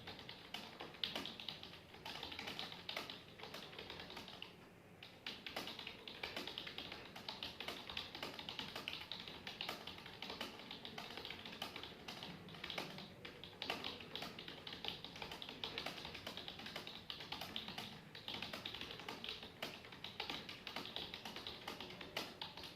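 Fast, continuous typing on a computer keyboard: a dense run of rapid keystrokes. There is a brief pause about four and a half seconds in, and the typing stops abruptly near the end.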